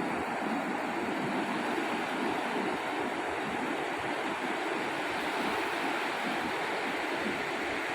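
Ocean surf: a steady wash of breaking waves on a sandy beach, with some wind on the microphone.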